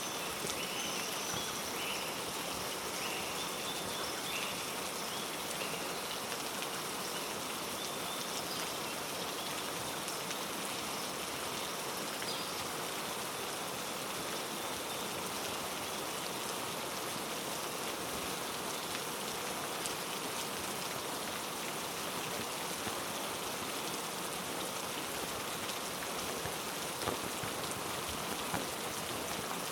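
Heavy rain falling steadily on rainforest foliage, an even hiss of drops. A few short high chirps sound in the first few seconds.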